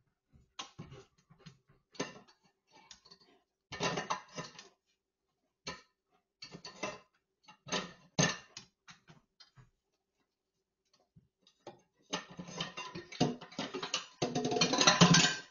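A German shepherd licking and nosing at dishes in a stainless steel kitchen sink: irregular clinks, clatters and licking noises with short pauses, getting busier and louder over the last few seconds.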